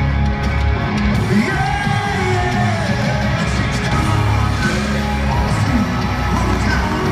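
Live country-rock band playing at stadium volume, with a male lead singer and heavy bass, picked up from within the crowd; fans yell along.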